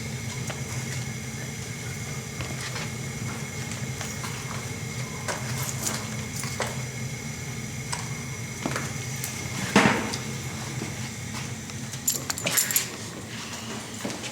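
Light metallic clinks and knocks of objects being handled, with one sharper knock about ten seconds in and a quick cluster a couple of seconds later, over a steady low hum.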